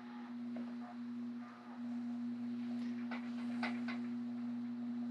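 A steady electrical hum, with a few faint light clicks and rustles about three seconds in from thread being wrapped by hand over the foot of a fishing-rod guide.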